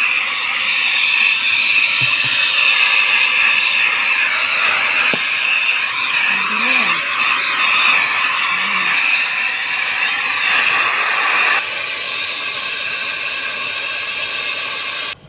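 Cordless handheld vacuum cleaner running with a steady high whine and rush of air as it vacuums the car's floor carpet and door sill. It drops a step quieter about eleven and a half seconds in and cuts off suddenly near the end.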